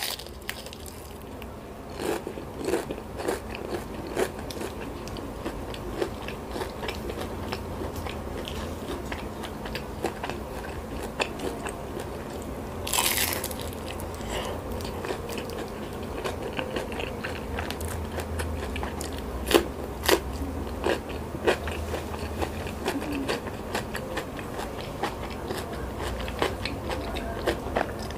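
A person biting and chewing crispy fried tofu, with crisp crunches and crackles throughout and a louder crunch about halfway through.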